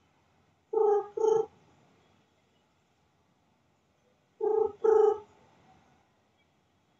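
Cat meowing in two quick pairs of short calls, about a second in and again about four and a half seconds in.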